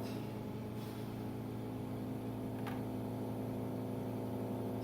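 Steady electrical hum with several pitched tones, and two faint light ticks about one and three seconds in.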